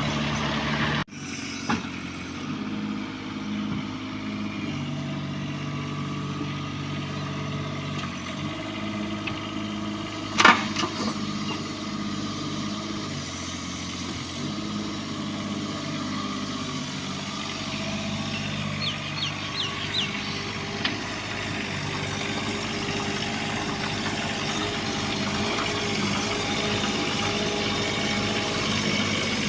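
Bobcat 322 mini excavator's diesel engine running, its low note stepping up and down every few seconds as the hydraulics take load. A single sharp knock sounds about ten seconds in, and a few light clicks follow later.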